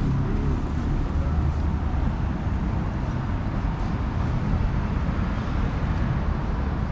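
Steady city street noise, mostly a continuous low rumble of passing road traffic.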